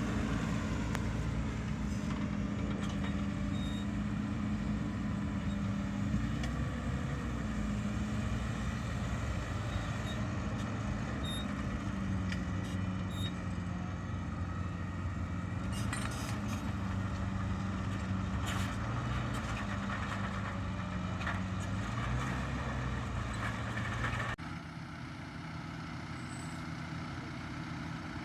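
Valtra Q Series tractor's diesel engine running steadily under load while pulling a five-furrow plough, its note shifting slightly in pitch. About four seconds before the end it drops to a quieter, duller level.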